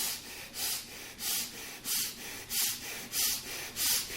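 Quick, forceful breathing through both nostrils as a rapid pranayama breathing exercise. The breaths come in an even rhythm of about three every two seconds.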